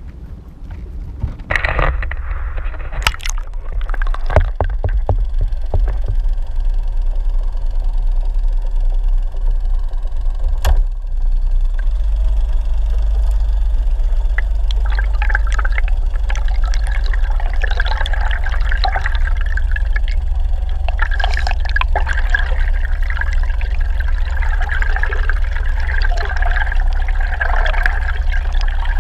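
Loud rushing, gurgling water over a steady low rumble. A few knocks and clatters come in the first few seconds.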